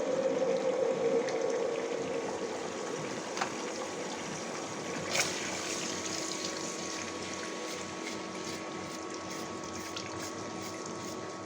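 Three beaten eggs sizzling as they fry in hot oil in a kadai, a steady hiss. Two sharp utensil knocks come about three and a half and five seconds in.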